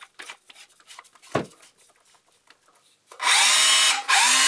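Makita DHR171 18 V cordless SDS-plus rotary hammer run with no bit fitted. After a few faint clicks, the motor spins up with a rising whine about three seconds in and runs for about a second, stops briefly, then spins up again near the end.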